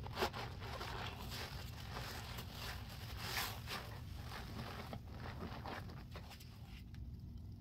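Large yellow sponges full of foamy dish soap and baking soda being squeezed and kneaded by gloved hands: irregular wet squelches and squishing suds, thinning out near the end.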